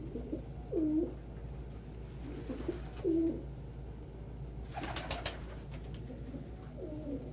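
Domestic pigeons cooing: three short runs of low, warbling coos. A brief rustle about five seconds in.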